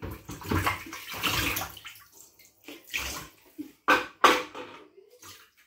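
Water splashing and sloshing in a stainless steel kitchen sink as dishes are washed by hand, followed by a few sharp knocks of items against the sink about three to four seconds in.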